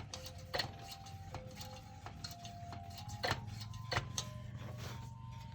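Hand air pump on a kerosene pressure lantern being stroked to pressurise the fuel tank: irregular clicks about once a second with short squeaks from the pump plunger.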